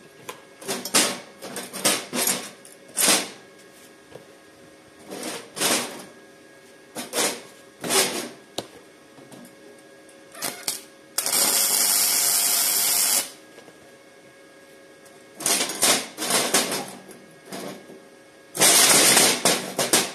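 Flux-core arc welding on 2 mm steel sheet with a Parkside PIFDS 120 B2 welder. A string of short crackling arc bursts is followed by two steady sizzling runs of about two seconds each, the second near the end.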